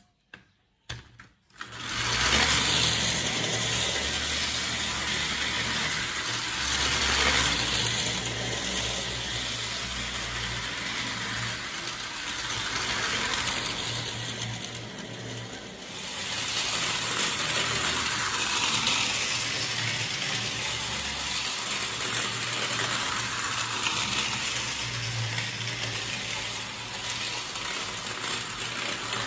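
Mid-1920s Bing OO-gauge clockwork 2-2-2 tank engine let go after a few clicks about two seconds in, then running steadily with its train: the spring-driven motor whirring and the wheels clattering over tinplate track.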